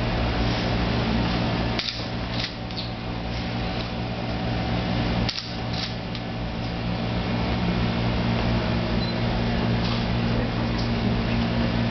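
Steady mechanical hum and hiss of a running ventilation fan, dipping briefly twice, about two and five seconds in.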